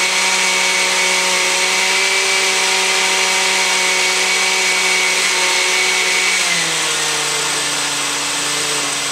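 Countertop blender motor running steadily as it blends a fruit-and-milk smoothie. About six and a half seconds in, its pitch drops lower and it runs a little quieter.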